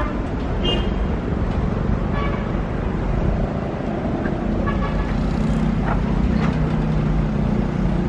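Steady low rumble of road traffic, with a few short horn toots.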